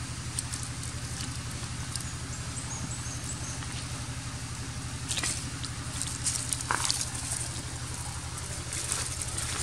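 Dry leaf litter crackling and rustling as a long-tailed macaque moves and walks across it, starting about five seconds in, over a steady low motor drone.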